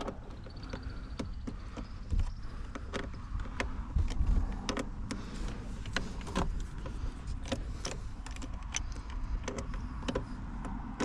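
Irregular light clicks and knocks of a hand tool working on a steering-wheel airbag bolt behind the plastic trim, with dull thumps about two and four seconds in.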